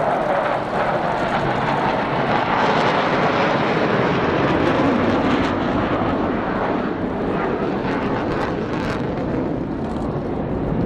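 Military aircraft engines passing overhead in a flypast: a loud, steady rushing roar whose pitch sinks slowly over the first few seconds.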